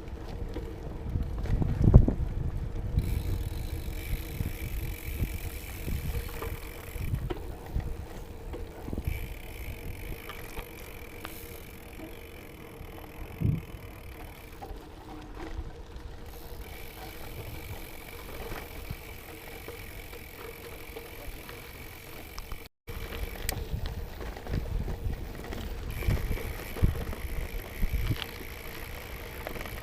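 Gravel bike rolling over a rough gravel track: its 38 mm tyres crunch, and uneven bumps jolt the frame and the mounted action camera, with wind rushing over the microphone. The biggest jolt comes about two seconds in.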